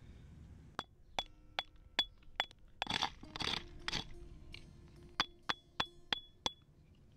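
Metal hammer head striking rock in a steady run of blows, about two and a half a second, each with a short, high metallic ring. In the middle come three rougher, gritty blows as rock chips and crumbles, then the clean ringing strikes resume.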